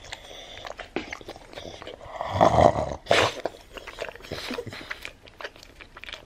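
A pug grunting and snorting, with a longer low grumble about two and a half seconds in followed by a sharp snort, among light clicks and knocks.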